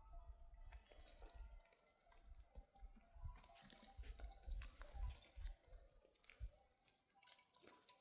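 Near silence: faint, scattered low rumbles with a few light clicks, dying away over the last two seconds.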